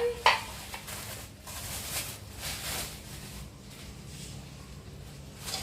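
A sharp click, then soft, intermittent rustling and handling noises.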